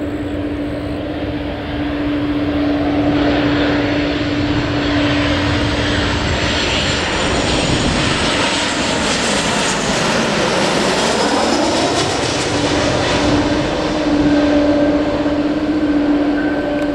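Airliner passing overhead: its engine noise swells to a peak about ten seconds in, with a sweeping, phasing whoosh as it goes over, then eases off. A steady low hum runs underneath.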